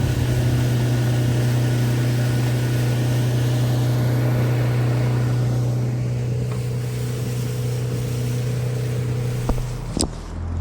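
Boat motor running steadily at speed, a low engine hum under wide wind and water noise. The hum stops about nine and a half seconds in, and a sharp knock follows.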